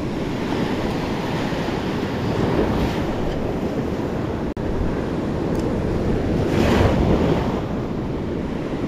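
Small waves washing in over sand and rock at the water's edge, with wind buffeting the microphone. The surf swells louder about two-thirds of the way through as a wave runs up the shore.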